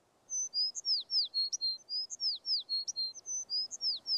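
Songbird singing: the same short phrase of high whistled notes and quick downward slurs starts about a third of a second in and repeats evenly, about every second and a half.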